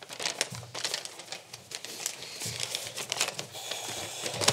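Sheets of paper rustling and crinkling close to a lectern microphone, with a run of small irregular clicks and knocks from handling at the lectern.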